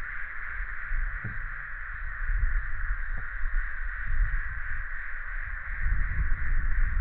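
Wind rumbling and buffeting on a handheld camera's microphone over a steady, unbroken high buzz, with two faint ticks about a second in and about three seconds in.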